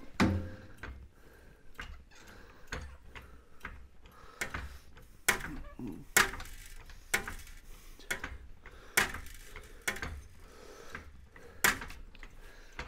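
Hydraulic trolley jack being pumped to raise a car's front suspension, with a string of sharp clicks and knocks roughly once a second.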